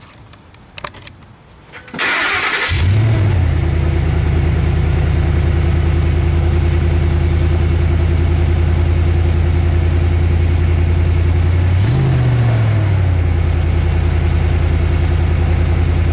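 Pickup truck engine cranked by the starter about two seconds in, catching with a short flare of revs and settling into a steady idle through a MagnaFlow dual side-exit exhaust whose leaking pipe joint has just been sealed with a repair clamp. One brief blip of the throttle later on, then back to idle.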